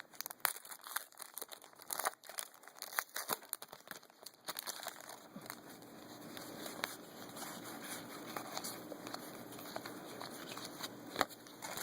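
Trading cards being flipped through and handled: quiet, irregular rustling and small clicks of card stock sliding against card stock.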